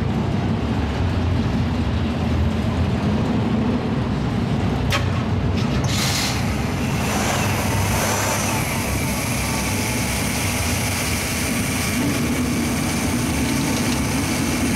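AMC 401 V8 with a four-barrel carburetor, in a 1971 Javelin AMX, idling steadily. There is a sharp click about five seconds in, and the sound brightens about six seconds in.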